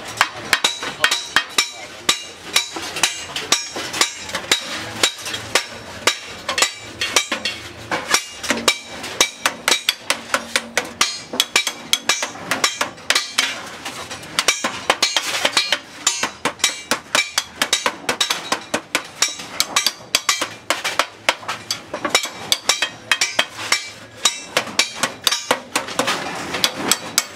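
Hand hammer beating the edge of a sheet-aluminium cake pan held on a steel bar: a steady run of sharp metallic blows, about three or four a second, with brief pauses.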